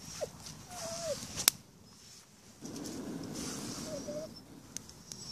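Small campfire of birch bark and dry twigs catching and crackling, with a sharp pop about one and a half seconds in.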